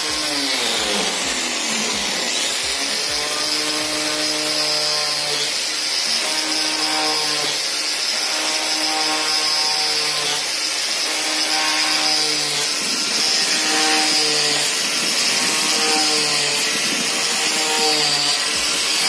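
Angle grinder fitted with a drill chuck adapter, running at high speed and drilling holes into plywood, with a steady high motor whine.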